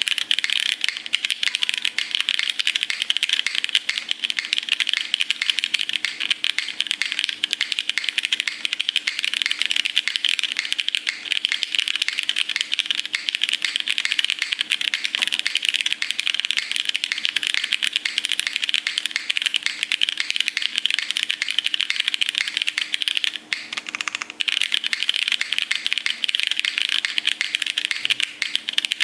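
Leviatán R1 Grey keyboard being typed on fast and continuously, a dense stream of key clacks, with a short pause about three-quarters of the way through.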